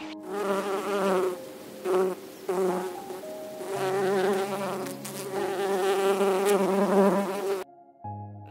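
Honeybee buzzing in flight, the buzz wavering in pitch. It comes in short bursts with brief breaks during the first few seconds, then runs more steadily and cuts off suddenly near the end.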